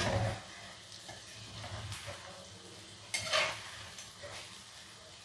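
Small urad dal batter balls sizzling as they deep-fry in ghee in a kadhai, with a metal slotted spoon knocking and scraping against the pan as they are turned. The loudest scrape comes about three seconds in.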